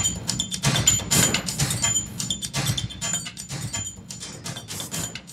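Closing theme music with a steady beat, fading down.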